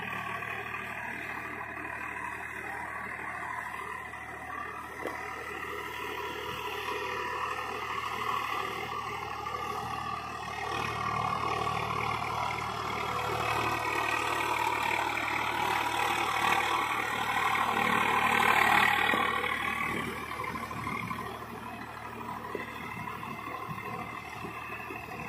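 Swaraj 744 FE tractor's diesel engine running steadily under load while its rotavator churns through wet paddy mud. The sound grows louder from about two-thirds of the way in, peaks, then eases off.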